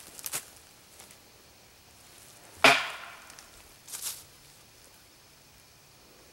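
A single loud wood knock about two and a half seconds in: a sharp crack of wood struck hard against a tree, with a short ring after it.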